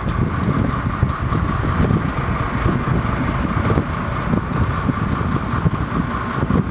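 Fishing boat's engine running steadily, with wind buffeting the microphone in an uneven low rumble.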